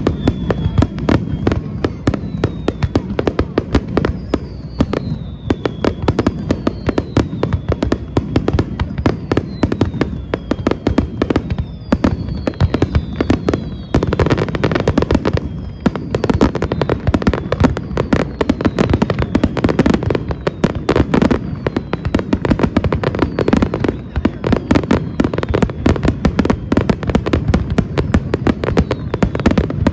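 Fireworks display: a rapid, dense barrage of bangs and crackling, with several whistles gliding down in pitch through the first half. The barrage grows denser and louder about halfway through.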